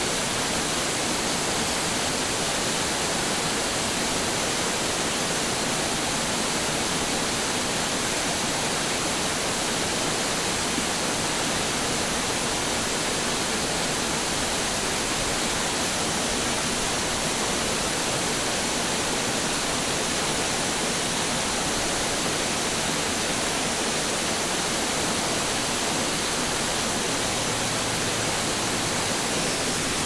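Small waterfall spilling down a rock face into a shallow rocky pool: a steady, even rush of falling water, hissy rather than deep.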